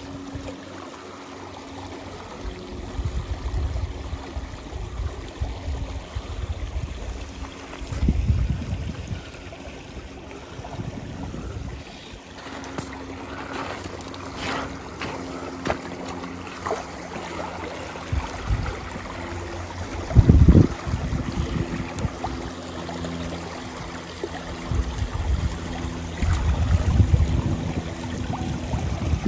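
Stream water flowing and rippling over shallow gravel, a steady rushing noise, broken by several low rumbles and a short loud thump about twenty seconds in.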